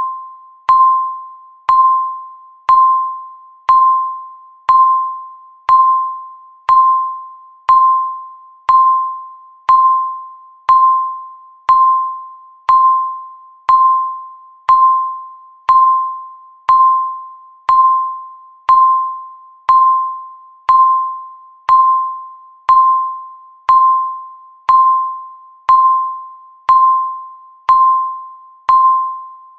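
Countdown timer beep, one for every second: a single tone near 1 kHz with a sharp start that fades quickly, repeating evenly about once a second.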